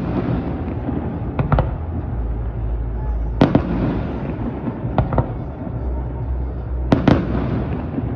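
Aerial firework shells bursting: a string of sharp bangs, many in quick pairs, about every second and a half, over a continuous low rumble.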